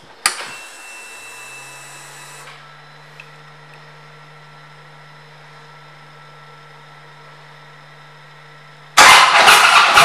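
A click, then a faint hiss for about two seconds and a low steady hum. About nine seconds in, the 2009 Harley-Davidson Police Electra Glide's V-twin engine is cranked and fires, loud through its Vance & Hines exhaust pipes.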